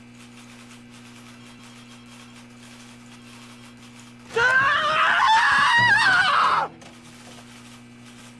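A loud, shrill scream lasting a little over two seconds, sweeping up in pitch as it starts and wavering before it cuts off, over a steady low hum.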